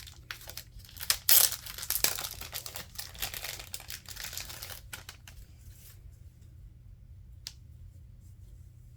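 Packaging being torn open and crinkled by hand, loudest about a second or two in and dying away after about five seconds, then a single sharp click.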